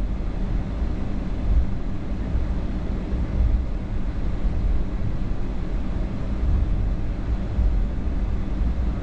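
Cabin noise of a Boeing 757-200 on the ground after landing: a steady low rumble from the engines and the airframe.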